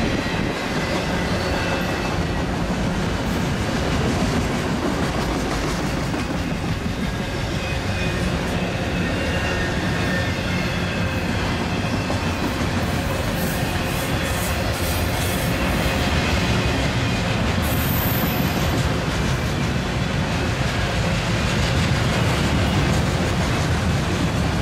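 Freight train of autorack cars rolling past steadily, wheels clacking over the rails and crossover switch, with a faint wheel squeal in the first several seconds.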